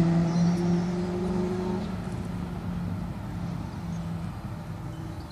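A motor engine's steady drone, fading away over about four seconds.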